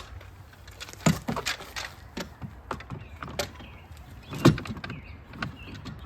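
Rudder hardware being fitted onto a plastic dinghy's transom: a series of clicks, knocks and rattles, with the two loudest knocks about a second in and past the middle.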